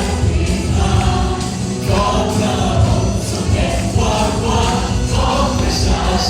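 Christian worship song: a group of voices singing over a band with a steady heavy bass.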